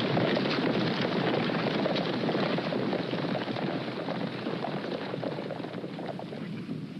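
A herd of horses galloping: many hoofbeats blur into a continuous rumble that gradually fades as the herd moves off. It is a vintage recording.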